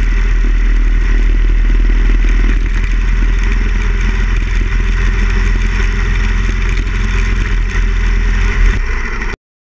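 1975 Harley-Davidson Ironhead XL1000's air-cooled V-twin running steadily while riding at town speed, mixed with wind rush. The sound stops abruptly near the end.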